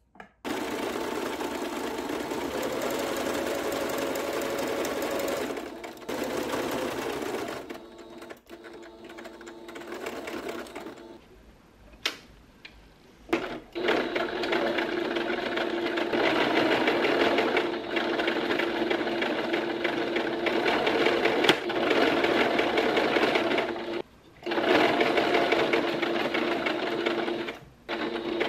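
Singer Brilliance computerized sewing machine stitching through fabric, running in several stretches and stopping between them: a long run at the start, quieter uneven stitching after about five seconds, a stop with a single click near the middle, then a long steady run broken by a brief stop near the end.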